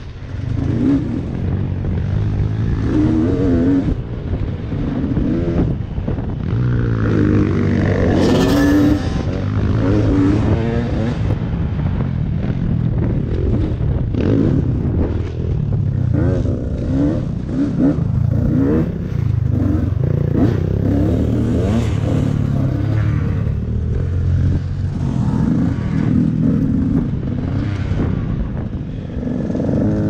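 Dirt bike engine running under load on an off-road course, the revs rising and falling repeatedly, with a strong run of revving about eight seconds in. Frequent short knocks and clatter from the bike over rough ground.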